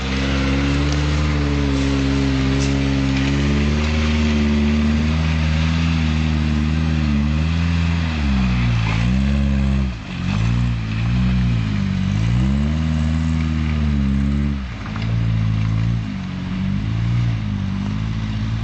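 Vehicle engine running under load while driving offroad. It holds a fairly steady pitch for about eight seconds, then drops and picks up again several times as the throttle is eased and reopened.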